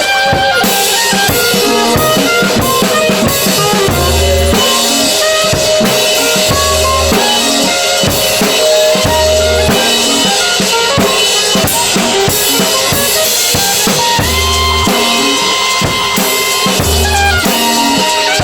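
Live improvised band music: a drum kit playing with kick and snare under held melodic notes, with a low bass note coming back about every two and a half seconds.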